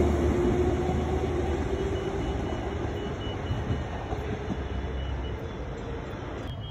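Electric suburban train running past and away, its motor whine and wheel rumble fading steadily.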